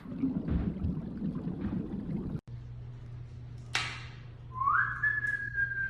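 Whistling: a single clear note that slides up about four and a half seconds in and is held steady, over a low steady hum, with one sharp click shortly before it.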